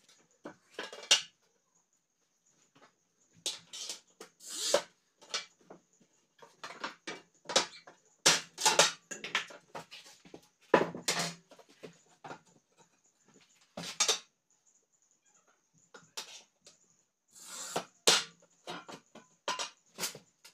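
Irregular knocks and clinks of glass panes and thin wooden strips being handled and set into a wooden window sash.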